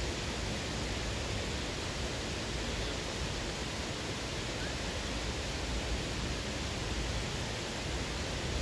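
Steady rushing of a mountain trout stream: an even hiss of moving water with a low rumble underneath.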